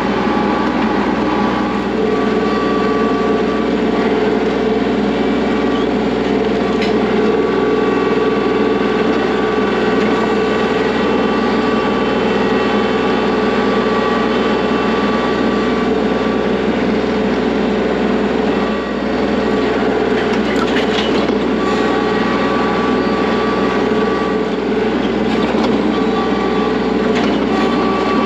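Kubota L3301 tractor's three-cylinder diesel engine running steadily under work, with a few faint knocks later on.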